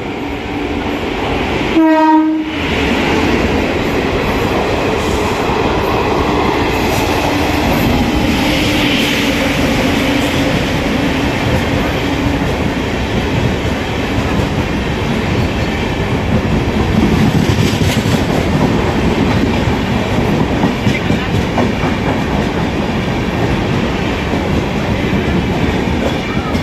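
Indian Railways express hauled by a WAP-7 electric locomotive passing through the station at speed. The locomotive's horn sounds briefly about two seconds in, followed by the steady rumble of the coaches going by, with rhythmic wheel clatter over the rail joints near the end.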